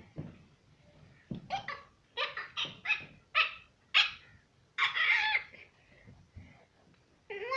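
A goat calling: a quick run of short, sharp bleats starting about a second and a half in, then one longer, wavering bleat about five seconds in.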